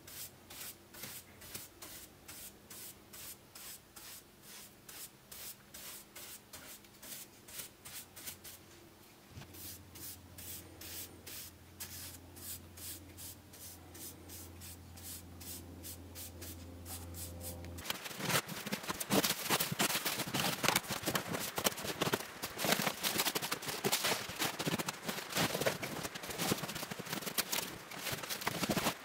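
Brush sweeping sawdust across a worn wooden workbench top in even strokes, about two a second. About eighteen seconds in, this gives way to louder crinkling and crackling of bubble-wrap plastic around a wrapped parcel.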